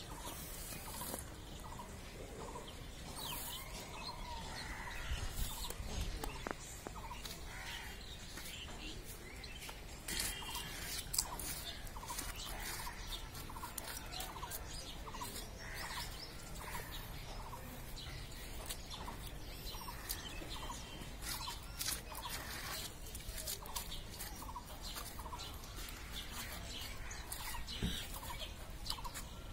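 Birds calling, a short note repeated about once a second for stretches, with scattered faint clicks from the knife and hands working the hide off a hanging goat carcass.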